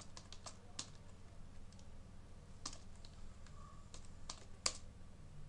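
Computer keyboard being typed in short, irregular runs of key clicks as a username and password are entered, with one sharper, louder click near the end. A steady low hum runs underneath.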